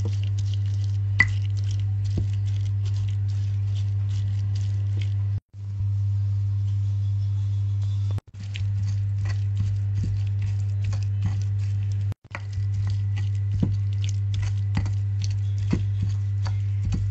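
Stone pestle crushing and grinding chilies, shallots and tomatoes in a stone mortar, with irregular knocks, taps and soft squishy scrapes. A steady low hum is louder than the grinding. The sound cuts out briefly three times.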